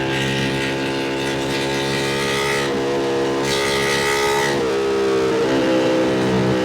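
Ducati Panigale V2 V-twin engine running at steady revs while riding, with a short dip and recovery in pitch about five seconds in.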